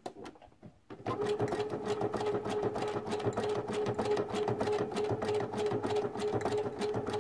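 Sewing machine stitching a satin stitch (dense zigzag) around a fabric applique, starting up about a second in and then running steadily with a constant hum and rapid needle strokes.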